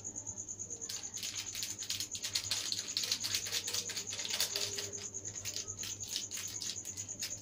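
Plastic instant-noodle seasoning sachet crinkling in the fingers as its powder is squeezed out, a fast irregular run of small crackles starting about a second in.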